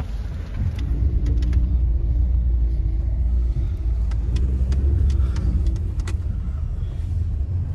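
Mahindra XUV700 driving over a rough road: a steady low rumble of engine and tyres that grows heavier about a second in, with scattered sharp clicks of stones under the tyres.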